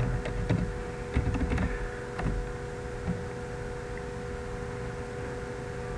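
Computer keyboard keys tapped several times in the first two seconds or so, typing a logon password. After that there is only a steady background hum.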